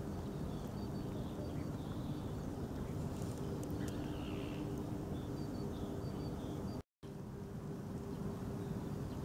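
Steady outdoor ambience at the water's edge: a low, even hum with faint, scattered high chirps, cut by a brief dropout about seven seconds in.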